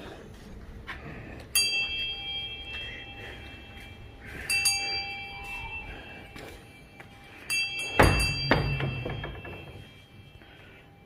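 A metal bell struck three times, about three seconds apart, each stroke ringing on with the same set of steady tones before fading. A heavy thud comes just after the third stroke.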